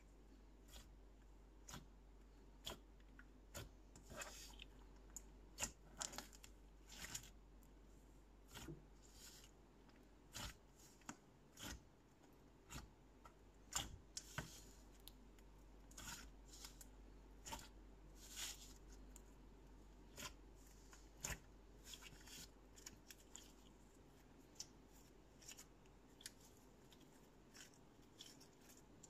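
Thick ice cream slime being kneaded, folded and stretched by hand, giving off irregular small clicking pops and crackles, about one or two a second, as air pockets in the slime burst.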